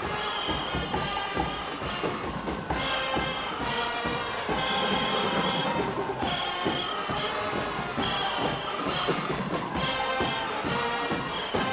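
Band music with brass and drums: a melody repeating in short phrases over a steady drum beat.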